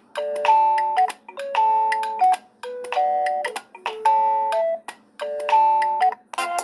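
A Wileyfox Swift 2 Plus ringtone: a short phrase of a few notes, repeated five times with brief pauses between repeats.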